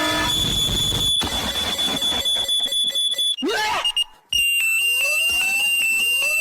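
Cartoon alarm sound effect: a steady, high-pitched electronic tone held for about three seconds. It breaks off briefly and comes back a little lower, with rising sliding tones beneath it.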